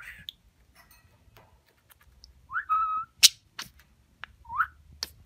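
Budgerigar giving a rising chirp that runs into a short held whistle about halfway through, then a second rising chirp near the end. A sharp click, the loudest sound, comes right after the whistle, with fainter ticks scattered around.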